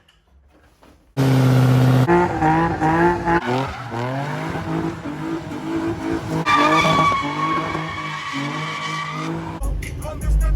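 Car engine revving hard, its pitch climbing and dropping again and again as it runs up through the gears, with tire squeal joining partway through. A deep bass beat comes in near the end.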